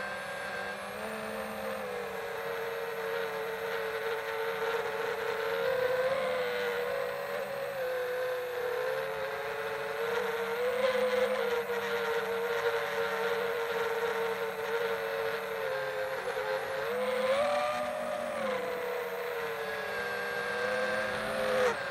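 FPV racing quadcopter's brushless motors and propellers whining, the pitch rising and falling with the throttle.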